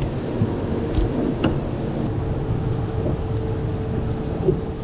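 Steady low rumble of wind and rain noise on the boat. A couple of light knocks come about a second in, and a faint steady hum joins about two seconds in.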